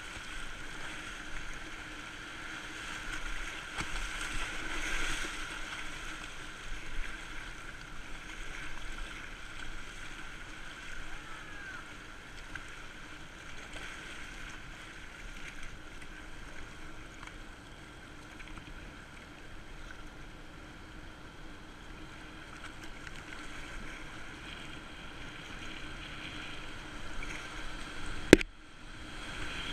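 Fast river water rushing and splashing around a whitewater kayak, heard through a GoPro mounted on the boat. Near the end comes a single sharp knock, and the sound briefly goes dull.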